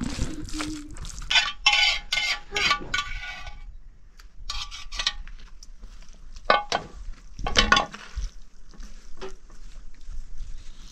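Metal cookware and utensils clinking and scraping: a quick run of ringing clinks lasting about two seconds, then a few separate clinks with quieter gaps between.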